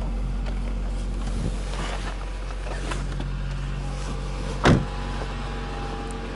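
UAZ Patriot's engine idling steadily, with a few faint clicks and one loud thud about two-thirds of the way through.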